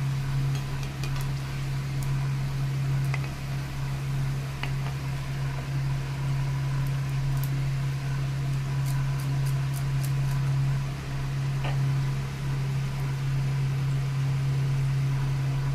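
A steady low hum, the loudest sound, over faint sizzling of gujiyas deep-frying in oil, with a few light clicks of a slotted metal spoon against the kadhai.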